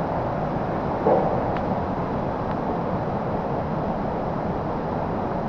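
Waterfall cascades rushing in a steady, even roar of water, with one brief louder burst about a second in.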